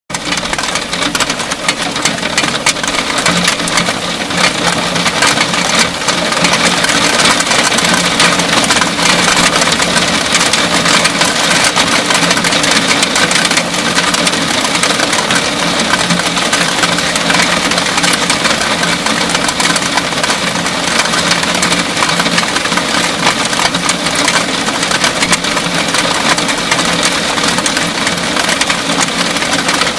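Heavy rain shower falling steadily: a loud, dense hiss of countless drops striking roof and ledge.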